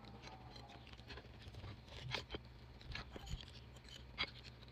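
Faint eating sounds: quiet chewing with a few sharp mouth or utensil clicks in the second half, over a low steady hum.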